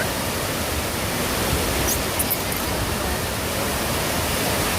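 Steady rushing of a waterfall, an even roar of falling water with a couple of faint high ticks about two seconds in.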